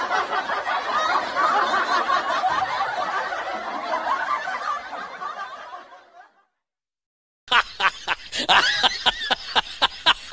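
Laughter from several voices overlapping, which fades out about six seconds in. After a second of silence, a run of short, sharp bursts of sound starts.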